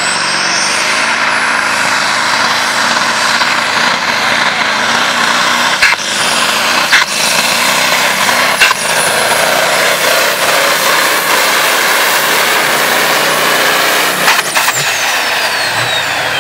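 Diesel pulling tractor's engine running flat out under load as it drags the weight sled, with a high whine held steady. A few sharp bangs come about six to nine seconds in. Near the end the whine falls away as the run winds down.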